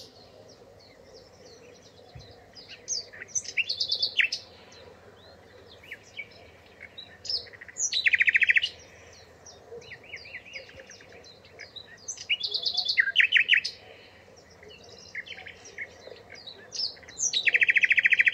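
Songbirds singing: scattered short high chirps, with a loud, fast rattling trill coming back every four to five seconds, three times.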